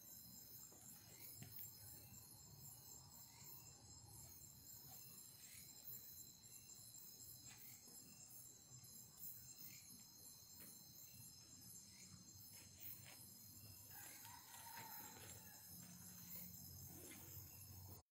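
Near silence, with a faint, steady high-pitched chorus of crickets and other night insects.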